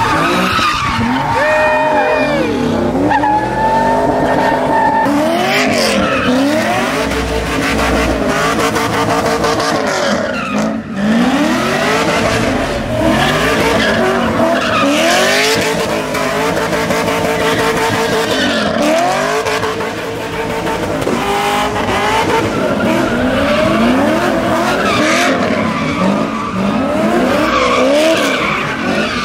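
Cars doing donuts: engines revving up and down over and over, with tires squealing and screeching as they spin on the pavement.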